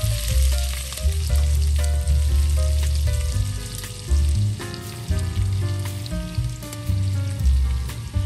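Halved cherry tomatoes frying in hot oil and garlic in a non-stick pan: a steady sizzle with scattered small pops and clicks. Background music with a strong bass line and a stepping melody plays under it.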